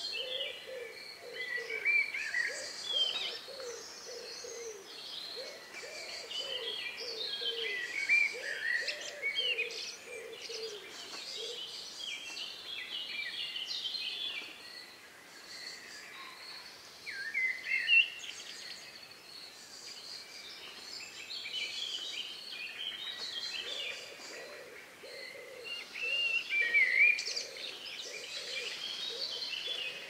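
Several songbirds singing at dusk: short, varied whistled phrases overlapping throughout. Underneath, a much lower call is repeated in a steady series for the first ten seconds or so and again near the end.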